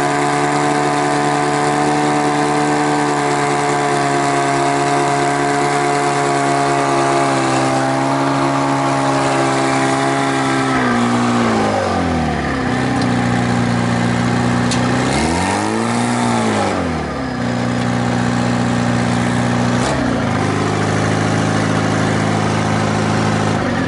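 A heavy machine's engine running steadily at high revs, dropping to lower revs about halfway through, then briefly revving up and back down, dipping once more and settling at a steady lower speed.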